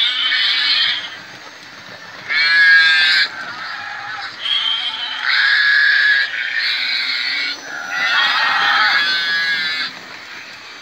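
Recorded farm-animal calls (goats, sheep and cattle) played by the sound units of model railway livestock wagons. They come as about six loud calls of half a second to two seconds each, some overlapping, with a thin, tinny, wavering sound.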